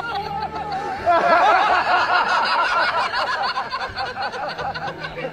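Laughter from several people, many overlapping 'ha-ha' pulses that grow louder and fuller about a second in.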